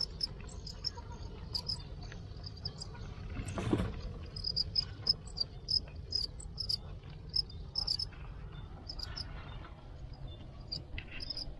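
Crickets chirping: short, high chirps repeating irregularly, with a brief rustle about four seconds in.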